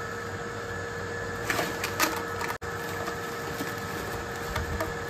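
Woven plastic sack crinkling and rustling as a coiled air hose and a box are pulled out of it, with a few light clicks and knocks, over a steady background hum.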